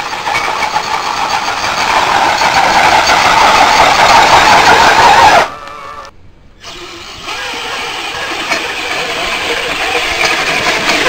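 Motor of a radio-controlled pulling truck or tractor running hard under load during a pull, building over about five seconds. It cuts off suddenly, then a quieter steady motor sound picks up a second or so later.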